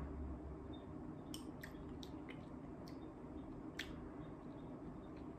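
Faint mouth sounds of a man sipping and tasting strong liquor: a handful of short, wet clicks from lips and tongue over a low, steady room hum.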